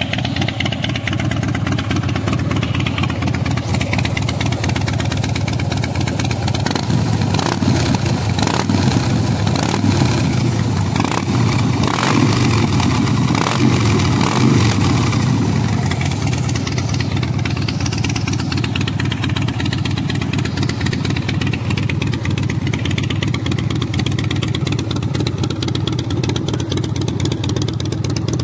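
2016 Harley-Davidson Fat Boy's V-twin engine running through a Vance & Hines Big Radius exhaust. It idles steadily, with a louder stretch of quick throttle blips in the middle.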